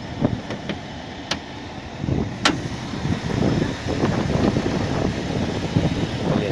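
Honda Legend's C35A 3.5-litre V6 running with a knock from spun crankshaft bearing shells. The noise is rough and low, gets louder about two seconds in, and has a couple of sharp clicks.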